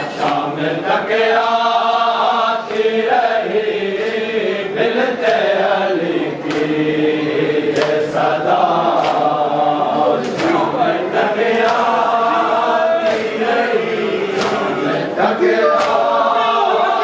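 A group of mourners chanting an Urdu noha together, with sharp hand-slaps of chest-beating (matam) falling in a steady rhythm about every second and a half.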